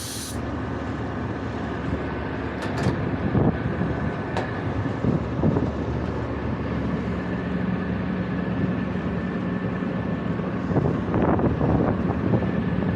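Steady hum of running machinery, with a few sharp metallic clicks a few seconds in and a steady low tone joining about seven seconds in.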